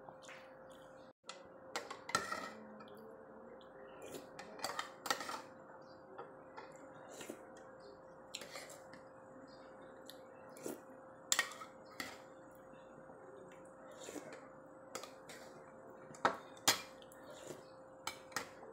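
Metal spoon clinking and scraping against a ceramic porridge bowl in scattered sharp taps, a few louder ones near the middle and end, over a faint steady hum.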